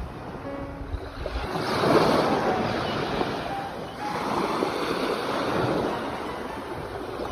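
Ocean waves surging and washing in slow swells, one rising about two seconds in and another around four seconds in.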